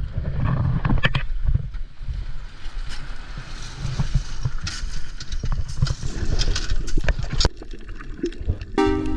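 Wind rumbling on the microphone over water and boat noise, with scattered knocks and clunks. Music with a clear steady melody comes in near the end.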